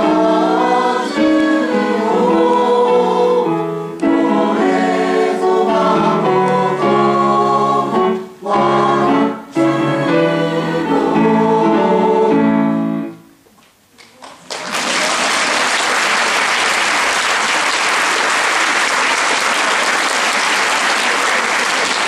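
Choir singing the closing phrase of a song, which ends a little past halfway through; after a brief pause an audience breaks into steady applause.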